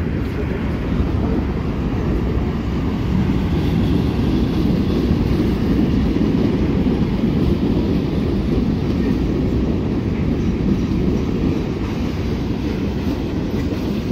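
Mixed freight train's cars (boxcars, covered hoppers, a tank car) rolling past close by: a steady low rumble of steel wheels on rail.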